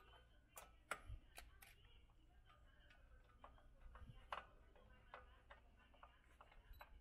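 Faint, irregular clicks and ticks of a hand screwdriver working a screw into the metal leg bracket of a table frame.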